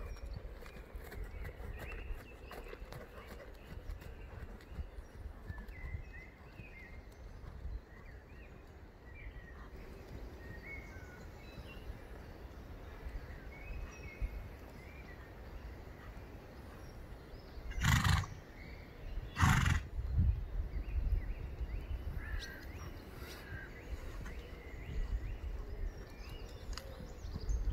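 Horse trotting on a soft arena surface, its hoofbeats faint under a steady low rumble. About two-thirds of the way through come two loud, short bursts of breath from the horse, a second and a half apart.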